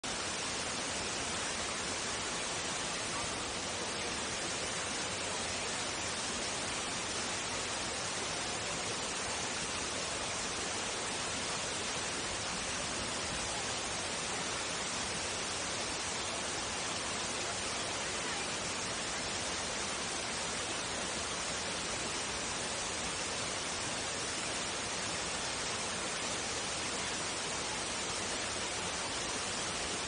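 Waterfall and creek water rushing steadily: an even, unbroken noise with no change in level.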